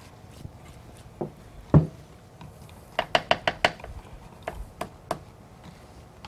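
Kitchen knocks and clicks: one hard knock about two seconds in, then a quick run of about six light taps a second later, and a few more scattered taps after.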